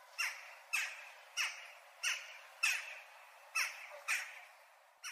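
Jackdaw giving its jack-jack call again and again: about seven short, sharp calls, each dropping in pitch, coming roughly every half second with a brief pause midway.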